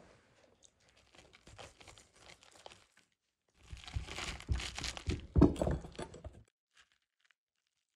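Salt-crusted skin of a baked potato crackling and crunching as hands break it open: light crackling at first, then a louder crunching stretch of a few seconds in the middle that stops suddenly.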